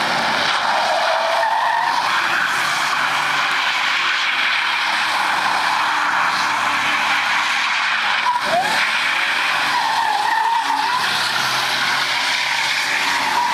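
A car doing a burnout: its tyres screeching without a break as they spin on the asphalt, with the engine running hard underneath. The squeal wavers in pitch about two seconds in and again near the middle.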